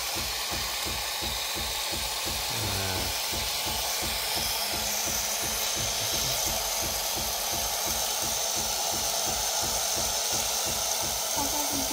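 Philips automatic espresso machine frothing milk through its LatteGo carafe and dispensing it: a steady hiss over a fast, even, rhythmic pulsing of the machine's pump.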